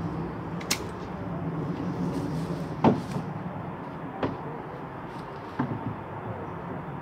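A few short knocks and clicks, the loudest about three seconds in, over a steady low hum.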